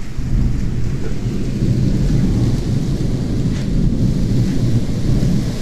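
Thunder rumbling on and on in a low, rolling drone, with rain falling at the start of a night thunderstorm.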